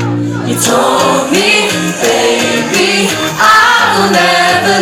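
Live pop song: a female and male vocal duo singing with musical accompaniment, louder about three and a half seconds in.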